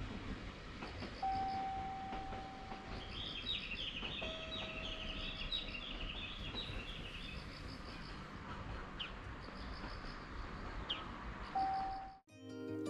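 Outdoor ambience: birds chirping and singing, with a chattering song in the middle and a few short falling whistles, over a low steady rumble. A few long, steady single tones are held for a second or two. Near the end the sound cuts off abruptly into acoustic guitar music.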